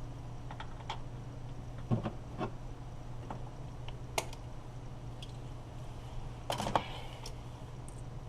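Scattered light clicks and a few knocks of car door parts being handled and fitted, with a small cluster of knocks about two seconds in and another near the end, over a steady low hum.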